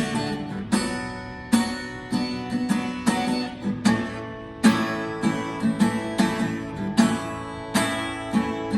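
Acoustic guitar strummed in a steady rhythm, a repeating pattern of bass-string strokes and chord strums with the chords ringing between strokes.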